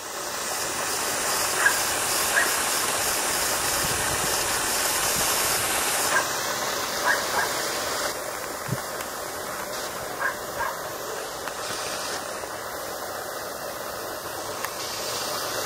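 Steady hiss of a garden hose spraying water, thinning in its highest part about six seconds in, with a handful of short, faint barks from a dog playing in the spray.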